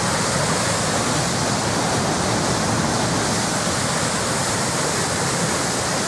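Water gushing out of the outlet at the foot of Cow Green Dam in a white-water jet into the River Tees: a steady, powerful rush of churning water.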